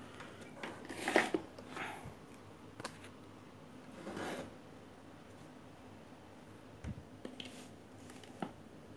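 Scattered light clicks, taps and short rustles of a steam iron's solenoid valve and its test wires being handled during a mains test, with a dull knock about seven seconds in. The valve is not working.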